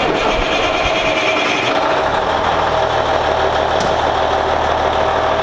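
Diesel semi-truck engine idling steadily and loudly, with a deeper low rumble settling in about two seconds in.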